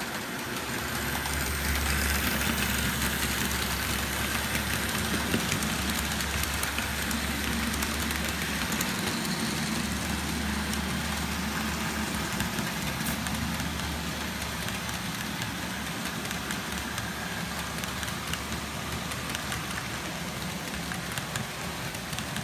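OO scale model diesel train running on the layout track: a steady motor hum with the rumble of wheels on the rails, swelling about a second in and easing slightly later as the coaches roll past.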